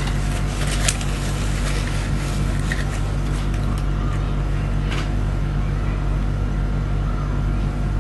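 Steady low mechanical hum with a faint hiss, broken by a few short clicks, one about a second in and another near five seconds.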